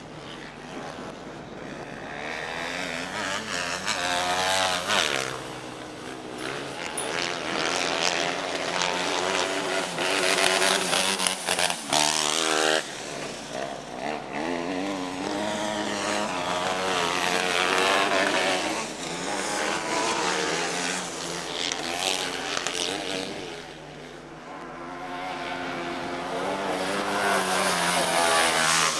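Racer 250 class autocross buggies racing past on a dirt track: small engines revving high, their pitch climbing and dropping with gear changes, growing loud several times as cars pass close and fading as they move away.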